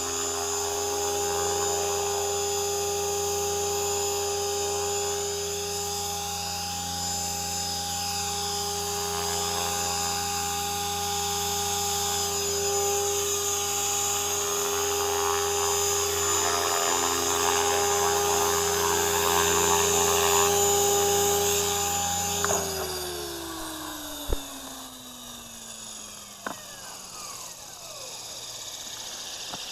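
Align T-Rex 500 electric RC helicopter hovering, its motor and main rotor making a steady, high whine. About three-quarters of the way in the motor cuts after landing, and the rotor spins down with a falling pitch. A few sharp clicks follow.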